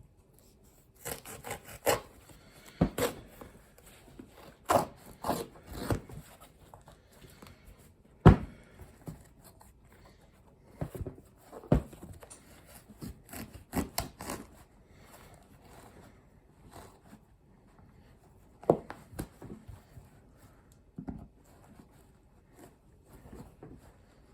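Pocket knife blade cutting into a worn-out shoe: irregular scraping, slicing and tearing strokes with occasional sharper knocks, the loudest about eight seconds in.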